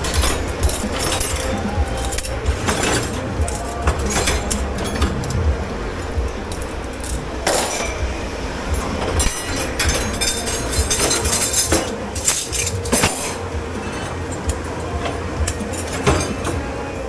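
Crockery, glassware and utensils clinking and clattering, over and over, as they are handled and stacked while washing up in a commercial kitchen dish pit, over a steady machine hum.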